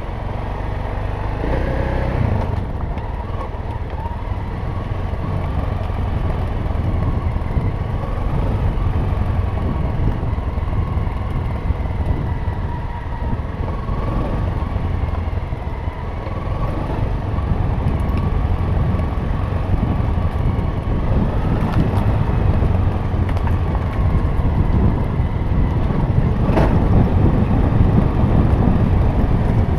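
Dirt bike engine running steadily while riding along a rough gravel track, with the rumble of the ride over stones and a couple of sharp knocks in the second half.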